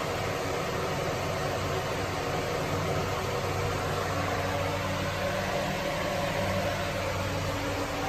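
A 20-inch box fan converted to 12 V DC with a 24 V, 150 W scooter motor, running steadily on high at about 77 W: an even rush of moving air with a low motor hum underneath.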